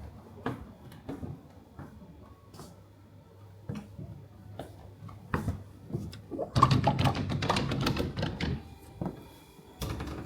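Scattered small clicks and knocks of objects being handled in a small space, with a dense, rapid clattering for about two seconds in the second half.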